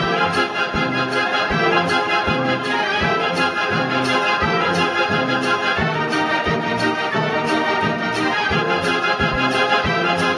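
Gebr. Decap dance organ playing a dance tune: organ pipes and accordions over its built-in drums and cymbal, which keep a steady beat.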